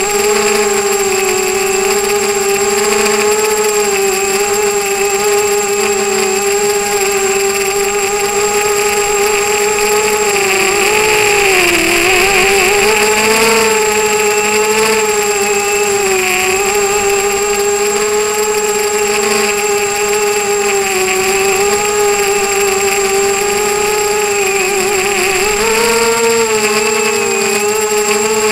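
Brushless motors and propellers of a ZMR250 mini quadcopter (DYS 1806 2300KV motors) whining steadily in flight. The pitch dips and recovers with throttle changes about halfway through and again a few seconds later, then rises near the end.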